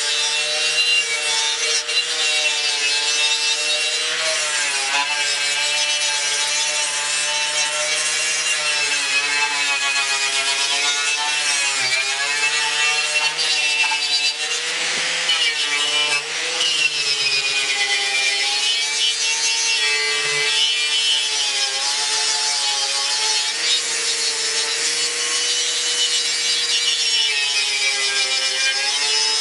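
Electric angle grinder with a wire wheel brush scouring paint and rust off a 1953 Ford F100 truck's grille to prep it for primer. The motor's whine sags and recovers as the brush is pressed into the metal, over a constant scratching hiss.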